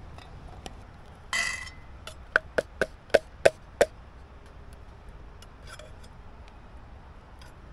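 A tin can of vegetables being knocked against the metal rim of a camp oven to empty it. A brief scrape comes about a second and a half in, then six quick ringing knocks.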